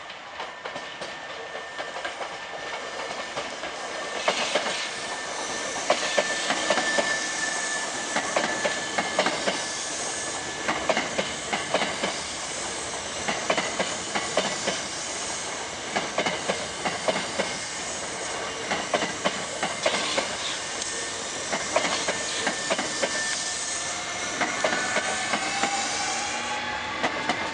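Hankyu 7300 series eight-car electric train, renewed with Toyo Denki VVVF inverter control, pulling away from a station and passing close by. Its wheels clack over the rail joints in a steady run of clicks over rolling hiss, and a rising electric whine comes in near the end.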